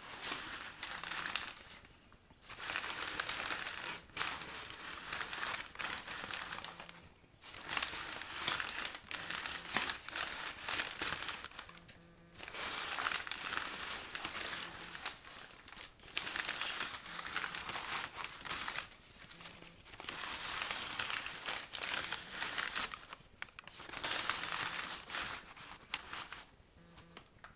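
Brown paper bags rustling and crinkling as they are pulled along and shifted, in bursts of two to five seconds with brief pauses between.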